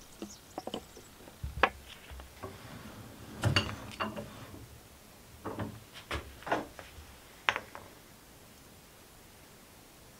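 Irregular knocks and clatters of tools and a wooden piece being handled on a wooden workbench by a cast-iron bench vise, a handful of separate strikes that stop about eight seconds in.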